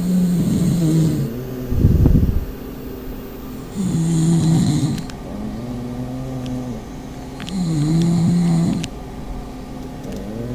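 Pug snoring: about five droning snores, roughly one every two seconds, with one louder, rougher breath about two seconds in.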